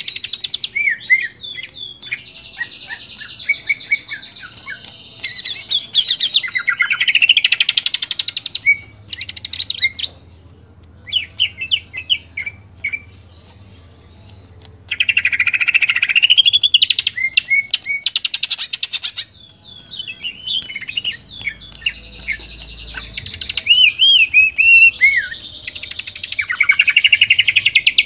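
Greater green leafbird (cucak ijo) singing loudly, with long bursts of rapid trills, chatter and rising and falling whistles. A quieter stretch of scattered short chirps comes around the middle.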